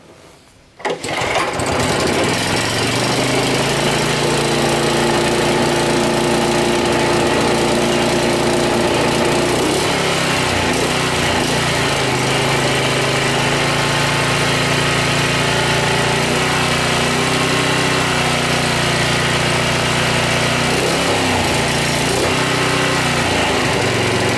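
Honda HRA 214 lawnmower's single-cylinder four-stroke engine pull-started on choke, catching about a second in and running steadily, its pitch wavering slightly partway through. It is starting after a carburetor clean-out meant to cure hard starting.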